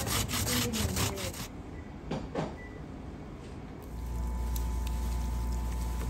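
Daikon rasped on a wooden oni-oroshi grater in quick strokes for about the first second and a half. About four seconds in, a steady low machine hum with a faint whine comes in.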